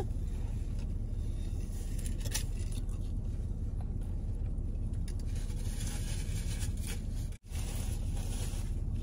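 Car engine idling as a steady low hum, with paper napkin rustling over it near the end; the whole sound cuts out for an instant about seven seconds in.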